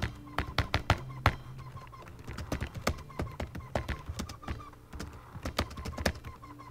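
Typing on a computer keyboard: quick, irregular key clicks in runs, broken by two short pauses.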